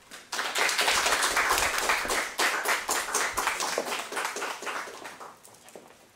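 A small audience applauding, starting a moment after the start, loudest for the first few seconds, then thinning out and dying away near the end.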